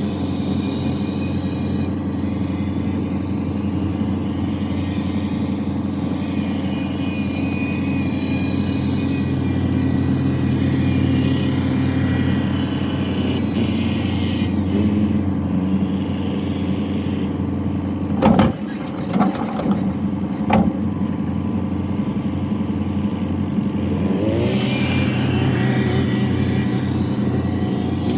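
A vehicle engine running steadily, with a short burst of loud clanks and bangs about two-thirds of the way through.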